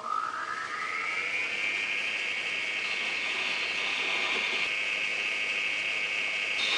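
Metal lathe spindle spinning up with a rising whine over the first second or so, then running at a steady pitch while a chamfer is cut on the part. It stops abruptly near the end.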